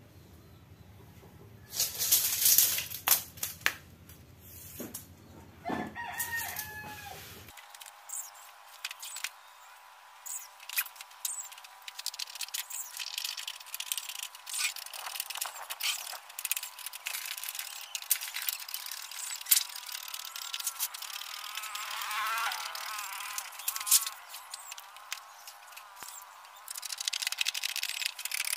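Thin 0.4 mm metal sheet being cut with hand snips: a run of sharp clicks from the blades, with the sheet crinkling and rattling as it flexes. A rooster crows in the background.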